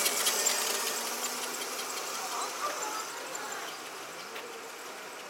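Electric seated scooters (e-steps) whirring and rattling on the asphalt, fading as they ride away.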